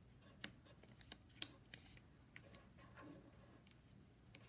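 Near silence with a few faint, sharp clicks and taps; the sharpest comes about a second and a half in.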